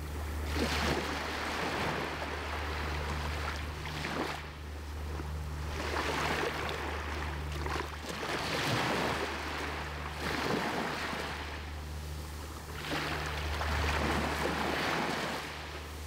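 Small sea waves breaking and washing up the sand at the water's edge: about four surges of foaming surf, each swelling and fading over a few seconds, over a steady low rumble.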